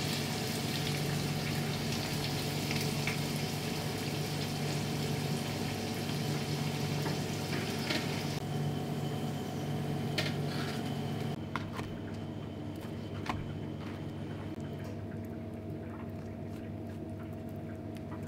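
Breaded beef cutlets deep-frying in a small pan of hot oil: a steady sizzling hiss with occasional clicks of chopsticks. About eleven seconds in the sizzle drops away, leaving a low steady hum.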